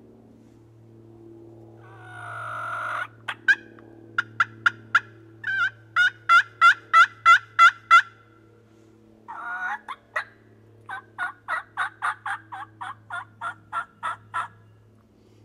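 Wild turkey yelping: a raspy note, then a long run of yelps about three a second that build louder. A second raspy note follows, then another run of about a dozen yelps that trails off.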